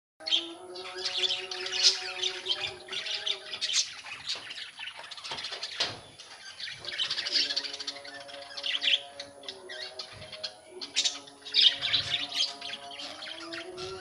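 A flock of budgerigars chattering and chirping together, many birds at once, in dense, overlapping high calls and squawks.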